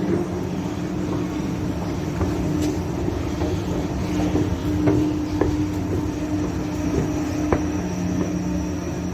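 Escalator running, a steady mechanical hum with a few sharp clicks and knocks from the moving steps.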